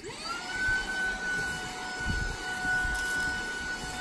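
Tineco cordless stick vacuum switching on, its motor whining up to speed within about half a second and then running steadily at a high pitch. A few low bumps sound about two and three seconds in.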